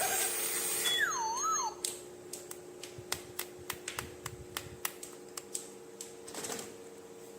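Background music ends with a wavering whistle tone, then a run of small, sharp plastic-like clicks, about three or four a second for several seconds, and a brief rustle near the end.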